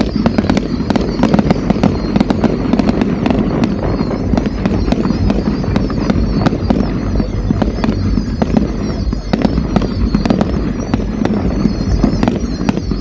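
Fireworks display going off continuously: many rapid crackles and pops over a steady low rumble.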